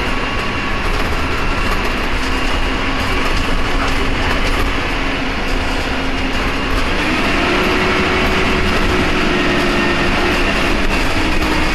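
Cummins ISMe 10.8-litre inline-six diesel and Voith DIWA automatic gearbox of a double-decker bus running under way, a steady drone with a faint whine that steps up in pitch about seven seconds in.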